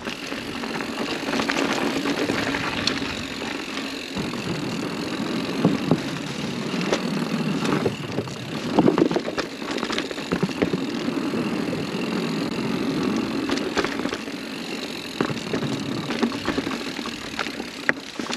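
Mountain bike rolling over a dirt and leaf-covered singletrack: a steady tyre rumble with the chain and frame rattling over bumps, and a louder jolt of knocks about halfway through.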